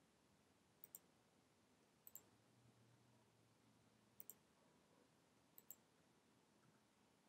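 Faint clicking of a computer's input buttons: four pairs of sharp clicks, each pair a button pressed and released, a second or two apart, over a low steady room hiss.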